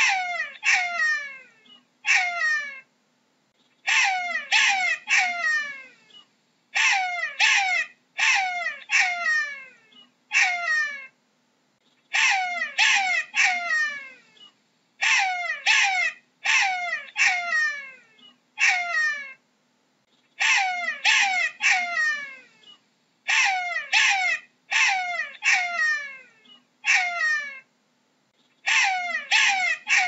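Jackal yelping: bouts of three to five high, wailing calls, each sliding down in pitch, coming about every three seconds with short pauses between bouts.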